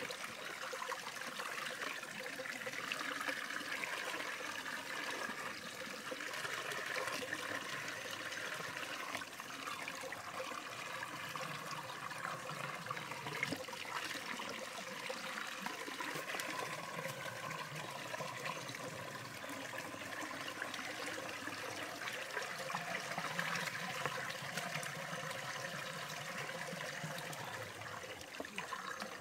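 Shallow stream water running and trickling over rocks, a steady rush with occasional light splashes from hands working in the water.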